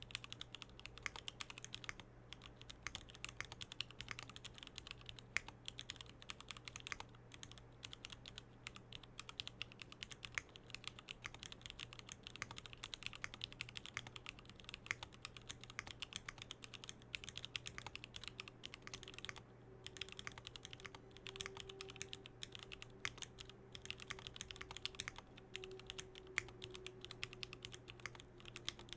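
Continuous fast typing on a Swagkeys Eave65 65% custom mechanical keyboard with Gateron Milky Yellow linear switches, JTK keycaps and an aluminium plate: a dense run of key clacks, with a few brief pauses.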